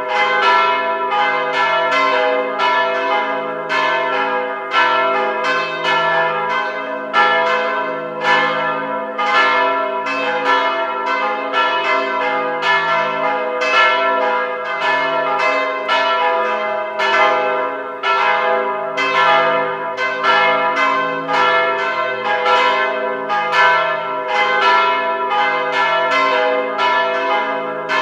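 Church bells rung in steady succession, roughly two strokes a second, each bell ringing on so that the tones overlap.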